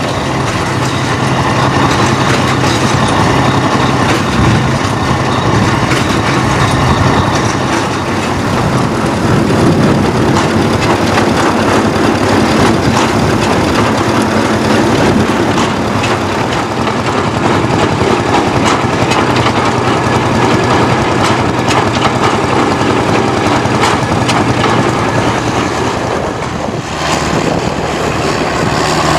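A heavy vintage tractor engine running steadily, with a short dip in level near the end.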